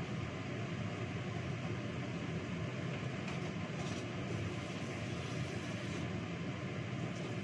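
Steady rushing background noise with a low hum, unchanging throughout, with a few faint light clinks about three to four seconds in.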